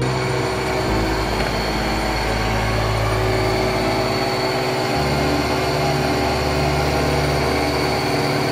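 Milling machine cutting hardened D6 tool steel with a solid carbide end mill under a coolant mist spray: a loud, steady machining noise. The low hum under it steps to a new pitch about a second in and again about five seconds in.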